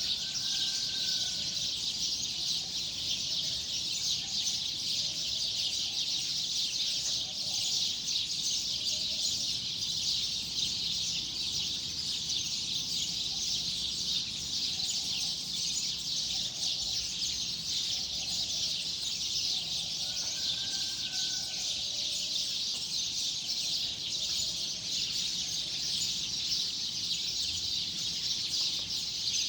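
Dense chorus of many small birds chirping without pause. A short whistled note comes twice, near the start and about two-thirds of the way through, and softer low calls repeat underneath.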